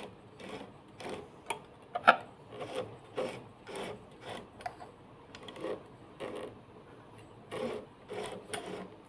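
Singer 1301 sewing machine's mechanism being worked by hand, a series of short rubbing, clicking strokes at about one or two a second, while the bobbin thread is being brought up.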